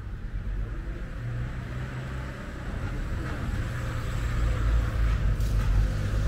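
Low rumble of a road vehicle with tyre hiss, growing steadily louder as it approaches.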